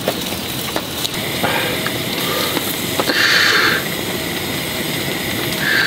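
Heavy rain pattering on a tent, with glazed chicken-heart yakitori sizzling on a small grill. A brief louder hiss comes about three seconds in and again near the end.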